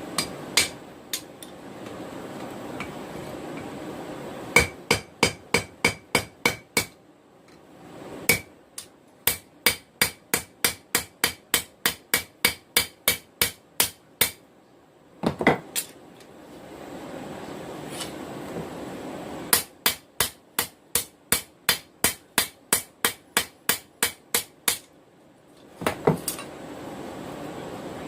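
Hand hammer striking a hot steel knife blank on an anvil while forging a skinner blade to profile. The blows come in three runs of about three to four a second, each strike ringing briefly. A steady rushing noise fills the pauses between runs.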